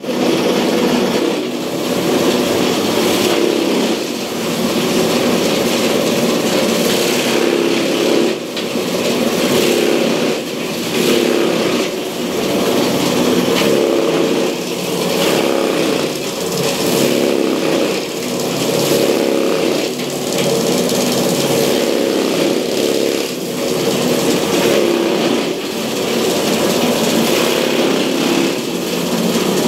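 A motor-driven cutting machine running steadily, its sound dipping briefly in a regular cycle about every one and a half to two seconds.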